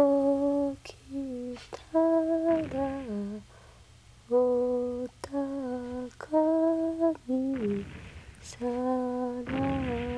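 A woman humming a slow lullaby in short phrases of held notes, each phrase stepping down in pitch at its end, with breaths between the phrases.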